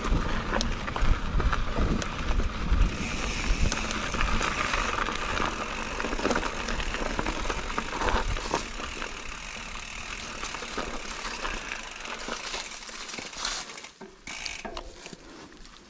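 Mountain bike riding down a dirt trail: tyres rolling over dirt and leaves and the bike rattling over the bumps, with a low rumble of wind on the camera microphone. It gets quieter toward the end.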